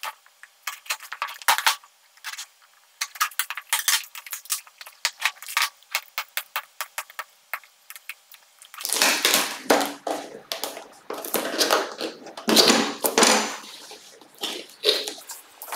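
Short clicks and scrapes of a small knife cutting the seal of a cardboard box. From about nine seconds in comes louder, denser scraping and rustling as the packaging is worked open.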